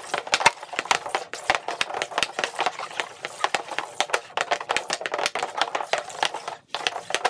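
Hockey stick blade rapidly tapping a puck back and forth on a tiled surface while stickhandling: a quick, irregular clatter of clicks and knocks, pausing briefly near the end.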